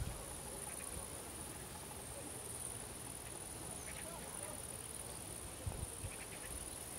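Insects stridulating in a steady, high-pitched, continuous buzz, with a few faint short chirps now and then.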